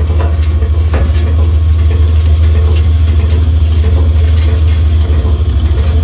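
Gross Gaz 62 E wood chipper running, its knife rotor turning over wood chips and offcuts: a steady low hum with a rapid rattle and a few sharp knocks.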